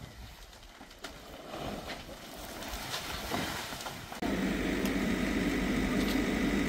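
A few seconds of low wind-like outdoor noise with scattered clicks, then a sudden jump, about four seconds in, to the much louder, steady sound of a JCB backhoe loader's diesel engine running.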